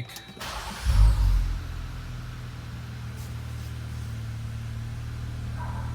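Jeep Wrangler Rubicon engine starting, with a K&N intake and MagnaFlow cat-back dual exhaust. It cranks, catches with a brief rev about a second in, then settles into a steady idle.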